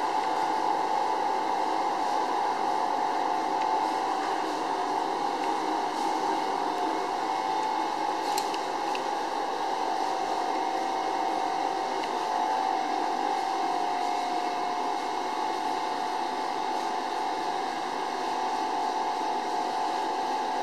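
Vacuum homogenizer emulsifying mixer running with a steady motor hum and a constant whine that dips slightly in pitch about two-thirds of the way through, as its tank is drawn down under vacuum.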